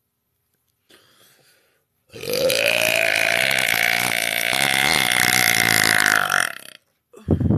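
A woman's long, loud belch held at a steady pitch for about four and a half seconds, then a short, deeper sound near the end.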